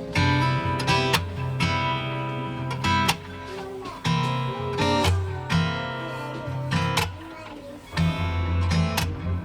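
Background music: strummed acoustic guitar over a steady bass.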